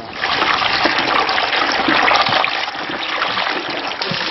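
Water pouring and splashing as a basin is tipped into a pot, heaviest for the first two seconds or so and then settling to a steadier splashing.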